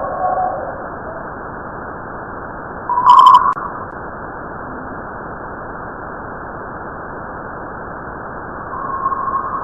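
Steady static-like hiss, as from a radio recording, with a brief high tone about three seconds in and another steady tone starting near the end.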